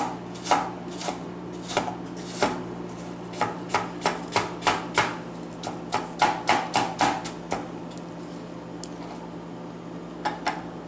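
Chef's knife chopping peeled apple on a plastic cutting board: a run of knocks of the blade on the board, coming faster from about three seconds in, stopping about seven and a half seconds in, with two more light knocks near the end.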